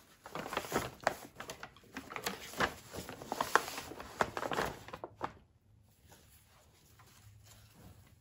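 Paper shopping bag and packaging rustling and crinkling as folded shawls are pulled out and handled, in dense crackly bursts for about five seconds before turning to fainter fabric handling.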